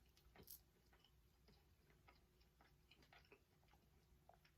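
Near silence with faint, scattered clicks of quiet chewing, the clearest about half a second in.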